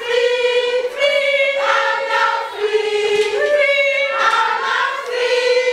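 A group of women singing together, holding long notes that step up and down in pitch.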